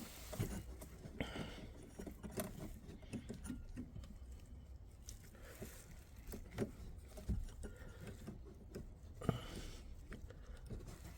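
Hands handling a small plastic wiring connector and cable: faint, scattered clicks and taps, a few sharper ones now and then.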